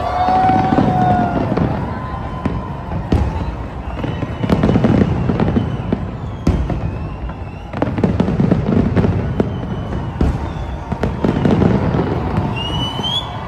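A fireworks display going off: deep booms every few seconds, many sharp cracks between them, and a few thin whistling tones, one rising near the end.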